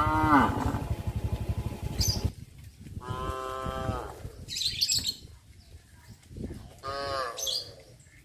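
Cattle mooing: three calls, the first and last falling in pitch and the middle one held steady for about a second. A low rumble runs under the first call.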